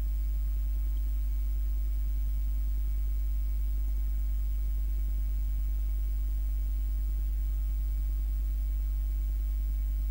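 Steady low electrical hum with a few faint higher overtones and nothing else.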